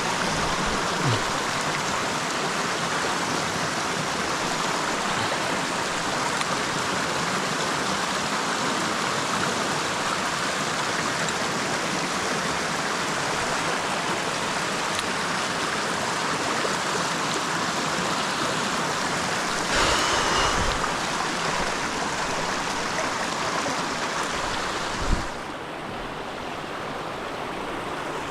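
Steady rush of a shallow stream flowing over rocks. A brief louder scuffle comes about two-thirds through, and a single knock near the end, after which the water sounds quieter and more muffled.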